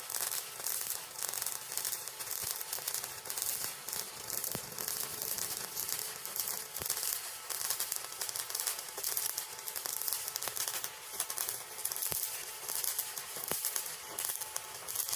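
Stick-welding arc from a Riland 200SE inverter welder burning a 6013 rod: a steady crackling sizzle with scattered sharp pops.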